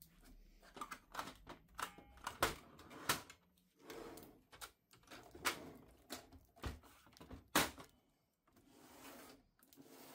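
Irregular plastic clicks and knocks from a Canon PIXMA TR4750i inkjet printer's housing and covers being handled, with softer rustling between them as the orange packing tapes and stickers are pulled off the new printer.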